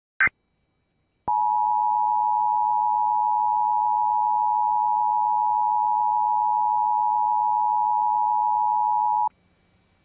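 Emergency Alert System attention signal: a steady two-tone electronic beep held for about eight seconds, starting just over a second in and cutting off sharply, announcing a National Weather Service flash flood warning. A very short blip comes just before it.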